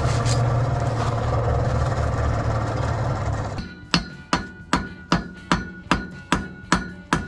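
Forge running with a steady roar and low hum, which cuts off about three and a half seconds in; then a hammer strikes hot steel on an anvil about nine times, roughly two and a half blows a second, each with a short ring, forge welding a fluxed bundle of mild steel rods.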